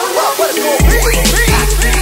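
Background hip hop–style music with a heavy bass line and drum beat that comes in just under a second in, under a vocal line.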